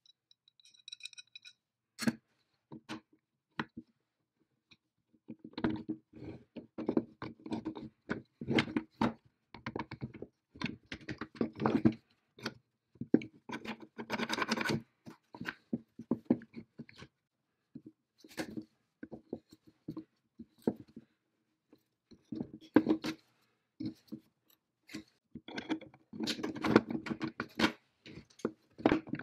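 Clicks, clinks, knocks and scrapes of rusty cast-iron and steel parts of a 1908 Yankee wine corking machine being handled and taken apart by hand, in irregular clusters with short pauses. A short, high metallic ring sounds about half a second in.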